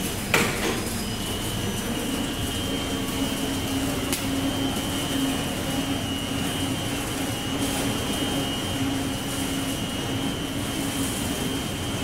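Steady drone of waste-processing plant machinery, with a low hum and a constant high whine, and a sharp clank about half a second in.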